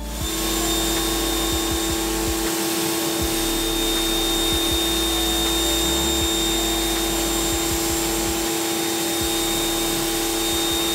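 Electric pressure washer running and spraying: a steady motor-and-pump whine under the even hiss of the water jet.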